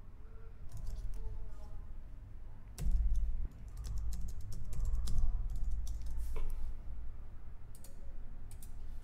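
Typing on a computer keyboard in irregular runs of keystrokes, with a few mouse clicks, while a login email and password are entered. There is a low thud about three seconds in.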